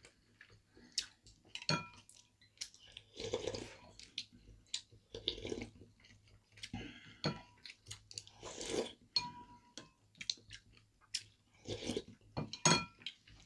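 Close-miked eating: wet chewing and crunching of food in irregular bouts. Chopsticks and a spoon click against ceramic bowls and plates, and one clink rings briefly about nine seconds in.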